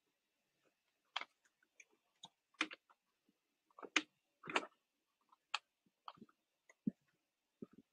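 Computer keyboard keystrokes and mouse clicks: short, irregularly spaced clicks, some in quick pairs.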